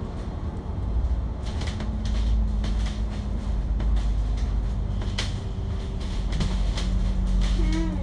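Inside a moving city bus: the engine running with a heavy low rumble and a steady hum, with scattered clicks and rattles from the cabin as it travels.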